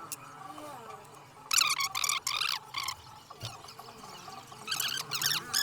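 High-pitched chirping calls, like small birds, in two bursts: one about a second and a half in lasting over a second, another starting near the end.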